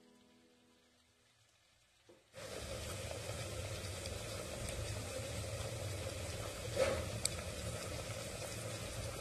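Dry fish curry in a thick tomato gravy sizzling and bubbling in the pan, a steady hiss that cuts in abruptly a couple of seconds in, with a couple of short clicks later on.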